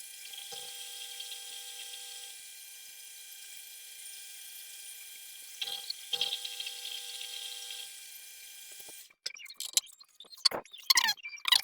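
Small metal lathe running while a carbide tool turns aluminium: a steady motor whine with several fixed pitches over a hiss, swelling briefly twice around the middle and stopping abruptly about nine seconds in.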